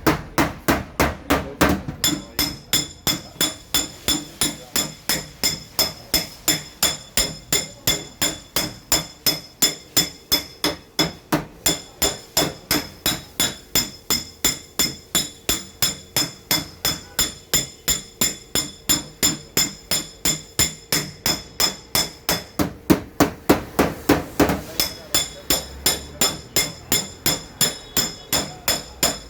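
Steady rhythmic hammer taps on a car fender's sheet metal, about three a second, each with a short metallic ring: metal being tapped out during paintless dent repair.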